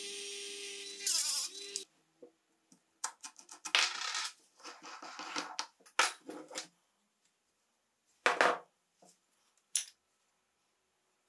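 An electric tool motor runs with a steady whine for about the first two seconds and then stops. Then the steel parts of a moped clutch clink, scrape and knock as they are handled and fitted into the clutch drum, with one louder knock near the end.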